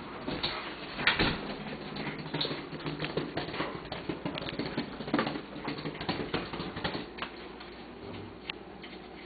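Rapid, irregular clicking and tapping of a golden retriever's claws and a motorized ball toy knocking on a hard floor as the dog plays with it. The loudest knock comes about a second in, and the clicking thins out after about seven seconds.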